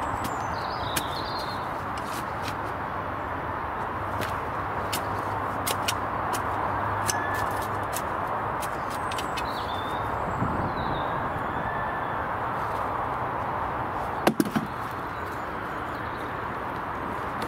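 Steel spade digging in garden soil: scattered scrapes and clicks as it cuts and lifts earth, with three sharp knocks in quick succession about fourteen seconds in, over steady outdoor background noise and a few faint bird chirps.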